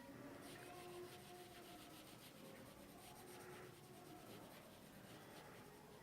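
Near silence, with faint scratching of a pencil on paper.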